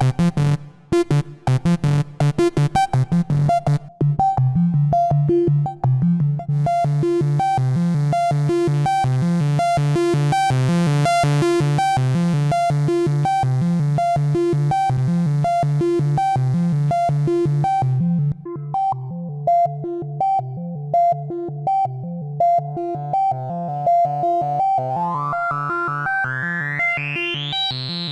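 3340-chip Eurorack analog oscillator playing a sequenced, repeating synth line. The notes are short and gated at first, then held and bright, then quieter and duller, with the tone brightening steadily near the end.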